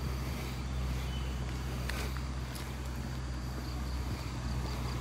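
Motorcycle engines running steadily, heard as a low, even hum, with a few faint clicks.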